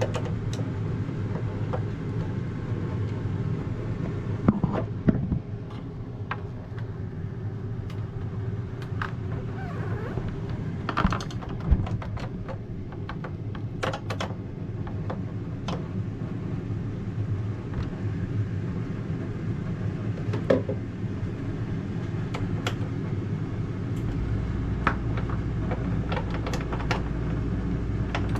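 Scattered light clicks and knocks of a refrigerator door's hinge bolt being worked in with hand tools, over a steady low hum. A deeper hum joins about three-quarters of the way through.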